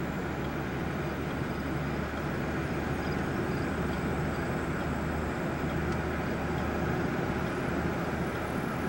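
Steady road noise of a car driving at about 20 miles an hour, heard from inside the cabin: engine and tyre noise with a low hum.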